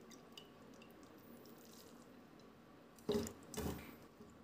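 A hand squeezing shredded potato in a steel bowl of water, wringing the water out of it: faint drips, then two short splashes about three seconds in as the hand plunges back into the water.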